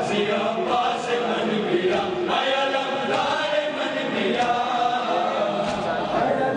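A crowd of men chanting a noha (mourning lament) together, with the sharp slaps of hands striking bare chests in matam coming through again and again.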